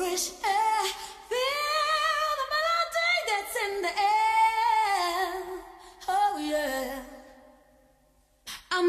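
Song soundtrack: a woman singing long held, gliding notes with little accompaniment. The singing fades away shortly before the end and starts again just before it.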